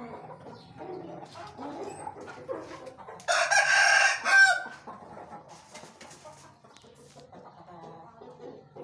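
A rooster crows once, a loud rough crow lasting about a second beginning about three seconds in, with softer chicken calls and clucks before and after.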